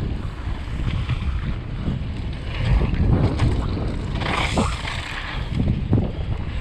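Wind buffeting the action camera's microphone over the rumble and rattle of a mountain bike's tyres and frame rolling fast down a dirt berm trail, with a brief louder hiss about four seconds in.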